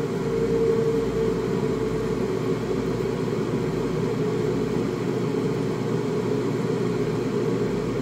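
Waterfall spray booth's extraction fan running steadily, described as powerful, together with the water pump's curtain of water sheeting down the back panel: an even rushing noise with a steady hum.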